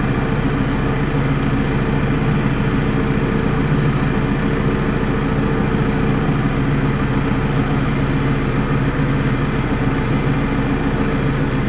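Tractor diesel engine running steadily, a loud, even drone with no change in speed.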